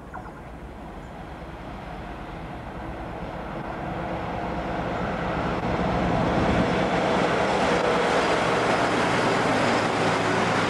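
Class 60 diesel-electric freight locomotive, with its eight-cylinder Mirrlees engine, approaching and passing close by. It grows steadily louder over the first six seconds, then runs at a steady level as the locomotive goes past.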